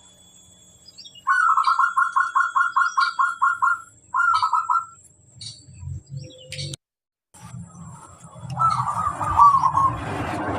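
Zebra dove (perkutut) cooing: a quick run of about a dozen short, evenly spaced coos, then a shorter run of a few. A further short cooing phrase comes about two-thirds of the way through, as a rushing noise rises toward the end.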